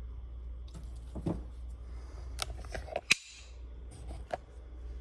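Several clicks and taps of handling over a steady low electrical hum; the sharpest click comes about three seconds in, and the hum drops out for a moment right after it.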